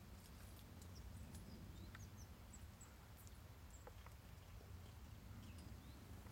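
Faint, short high-pitched chirps from small birds, scattered a few at a time, over a steady low rumble.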